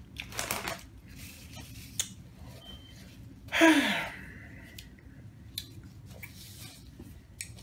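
Paper napkin rustling as hands are wiped, with a short breathy vocal sigh that falls in pitch about halfway through.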